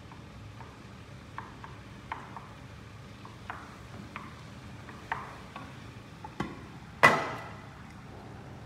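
Knife cutting tomatoes on a wooden chopping board: irregular light taps every half second or so. About seven seconds in comes one much louder clank that rings briefly and fades.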